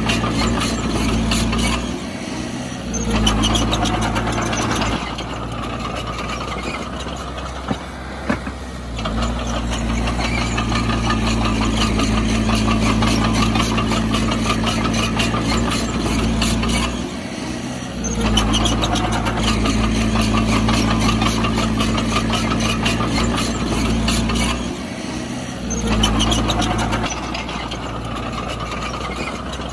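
The heavy diesel engine of an earthmoving machine runs steadily with a rattly note. Its sound falls away briefly four times, several seconds apart, as the load or throttle changes, then comes back.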